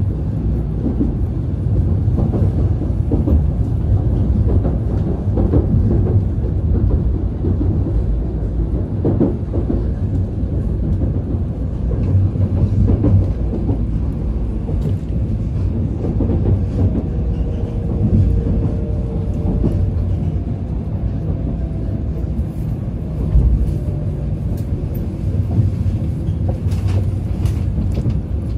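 Tokaido Shinkansen bullet train heard from inside the passenger cabin: a steady low rumble of wheels on the rails as it runs into the station. A faint whine comes in about halfway through, and a few sharp clicks sound near the end.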